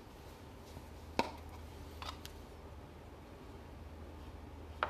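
Quiet room tone with a low steady hum and a few light clicks or taps, the sharpest about a second in and another near the end.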